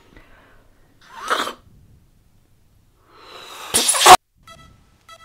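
A person blowing up a rubber party balloon: a short hard breath about a second in, then a longer, louder blow that builds and stops abruptly just after four seconds. Faint, evenly spaced pitched notes start near the end.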